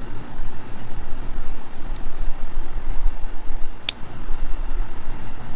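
Steady low rumble with two sharp clicks, about two and four seconds in, from a small metal multi-tool being handled as its spark wheel is taken out.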